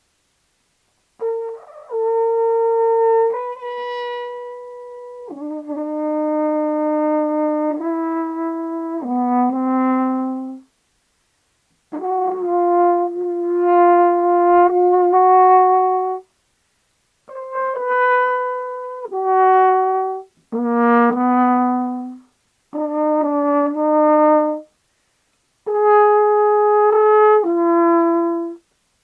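A brass instrument, horn-like, playing six short phrases of held notes that jump between pitches, each phrase separated by a brief silence.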